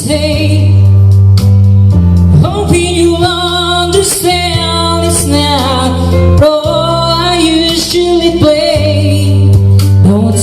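A song with a female singer and heavy, sustained bass notes, played loud through a loudspeaker for a sound test. The bass drops out briefly about six and a half seconds in.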